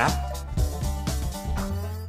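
Background music: held pitched notes over a steady low bass, with a few short percussive hits.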